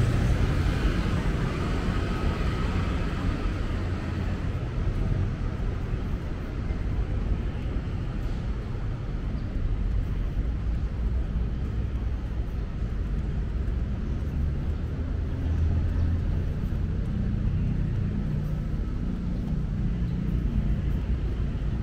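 Street traffic: a steady low rumble of passing vehicle engines, swelling slightly now and then.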